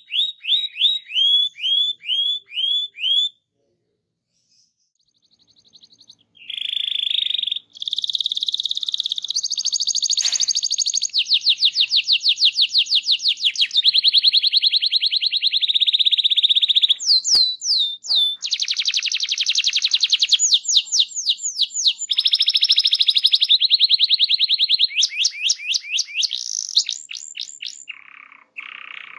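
Domestic canary singing: a few quick downward-sweeping chirps, a pause of a couple of seconds, then long unbroken rolls of very rapid trilled notes, switching from one rolling phrase to the next.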